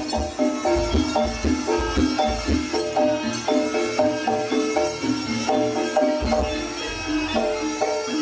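Live jaranan gamelan music: tuned metal percussion plays a fast, repeating pattern of short notes over low drum strokes, with jingling, rattling percussion on top.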